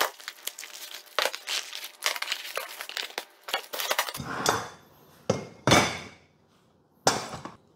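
Packaging crinkling and rustling, with many small clicks, as an unboxed laser engraver is handled; about four seconds in the crackling gives way to a few separate, longer rustles.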